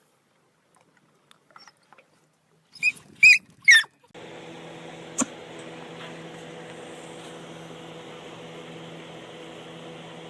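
Three short, loud, high squeaks in quick succession about three seconds in. From about four seconds on there is a steady hiss with a low hum and one click.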